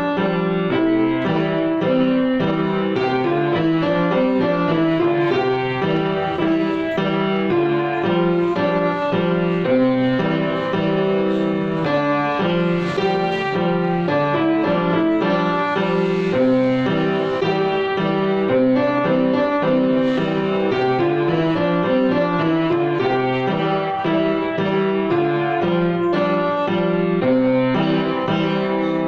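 Grand piano played solo: a continuous stream of notes and chords at an even loudness, with no pauses.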